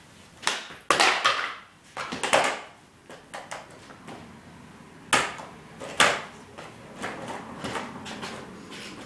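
Plastic penny board slapping and clacking on a concrete floor as the rider tries tricks. There are several sharp knocks, the loudest about a second in and around five and six seconds in, with wheel rattle between them.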